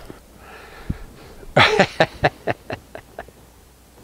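Metal hand tools clattering: a sharp clatter about one and a half seconds in, then a run of about seven short clicks, roughly four a second.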